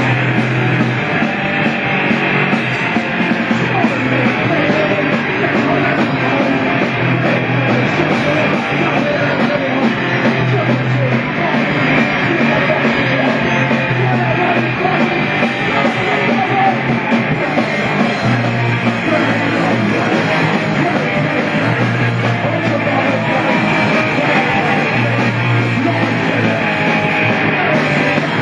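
Punk rock band playing live, loud and continuous, with a bass line moving between held notes.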